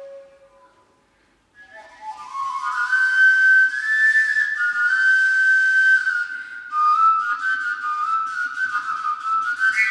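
A small whistle-type folk wind instrument played solo. One phrase ends and, after a short pause, a new melody starts with rising notes, then long held high notes with quick ornaments.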